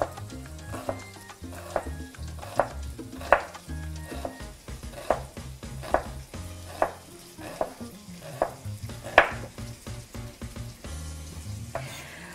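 Kitchen knife slicing a red onion finely on a wooden cutting board, the blade knocking on the board every second or so. Underneath is the steady sizzle of guanciale frying in a pan, rendering its fat.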